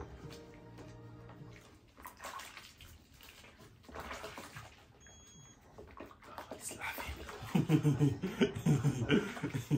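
Water splashing and sloshing in a small baby bath as a baby is washed by hand, with faint music at the start. Near the end a man's voice breaks in, laughing.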